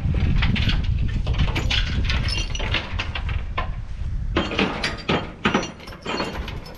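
Steel lashing chains clinking and rattling against the low-loader trailer's metal deck as a combine harvester is chained down, in many short knocks over a low rumble that fades about four seconds in.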